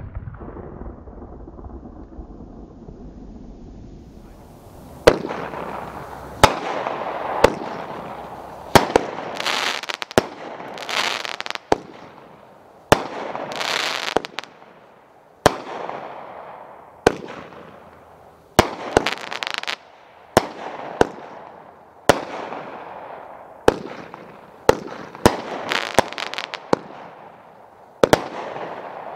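Red Rhino Joker's Jinx firework cake firing shot after shot, about one a second, starting about five seconds in. Each sharp report is followed by a crackling hiss that dies away.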